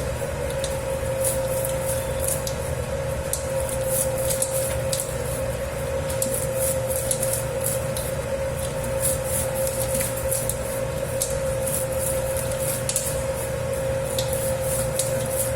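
Dough-kneading machine working a 10 kg batch of pizza dough: a steady motor hum with a constant mid-pitched tone, and the dough squishing with quick, irregular little clicks.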